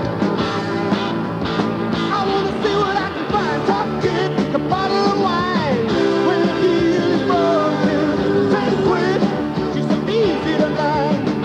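Rock music with a singing voice over steady instrumental backing.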